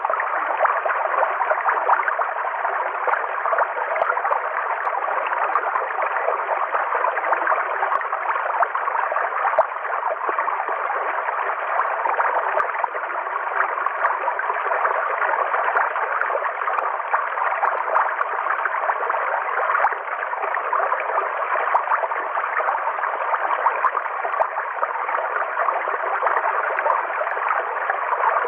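River water flowing over rocks, a steady, even rush of running water.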